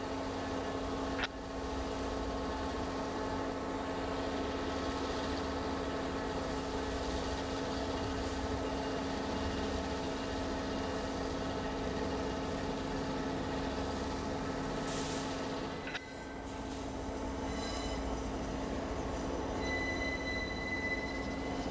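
Diesel locomotive engine running steadily in a rail yard, a low even hum with a steady drone. After a shift about sixteen seconds in, a locomotive rolls slowly by, with a brief thin wheel squeal near the end.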